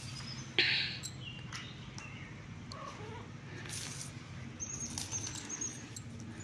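A kitten scampering and playing on a stone floor: light scuffs and taps of its paws, with a short louder rustle about half a second in.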